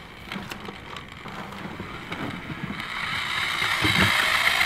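Cement topping powder poured into a pail of water with light scraping and ticks, then a handheld paddle mixer drill starts about three seconds in and speeds up, its motor running louder as it stirs the mix.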